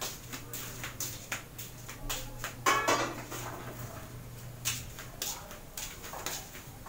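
Kitchen clatter of dishes and utensils: a string of small clicks and knocks, with one louder clatter about two and a half seconds in, over a steady low hum.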